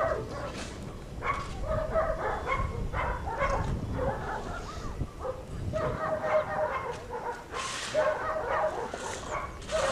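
Dogs barking and yelping, in short repeated calls.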